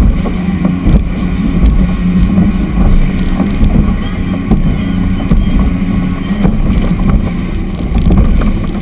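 Triple Mercury outboards on a 34-foot Fountain center console running at speed, with wind buffeting the microphone.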